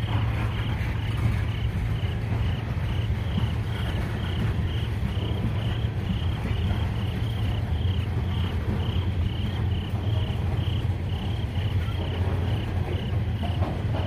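Freight train tank cars rolling past at close range: a steady low rumble of steel wheels on the rails. Over it, insects chirp at about two a second.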